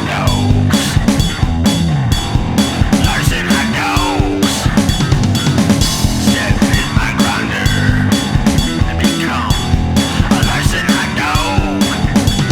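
Rock band music: a drum kit with bass drum and snare keeping a steady beat under bass and distorted guitar.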